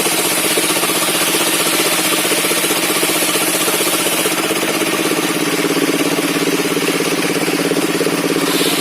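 Engine of a circular-saw sawmill rig running steadily with a fast, even pulse; its tone shifts slightly about halfway through.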